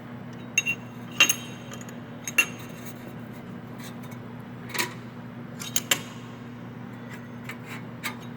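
Light metallic clinks and clicks, about nine of them at irregular intervals, over a steady low hum.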